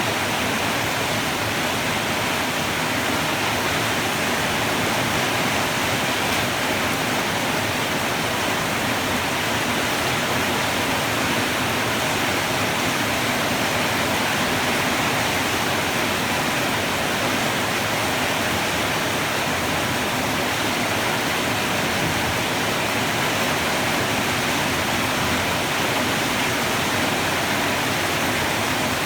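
Heavy rain pouring steadily: a dense, even hiss with no thunder.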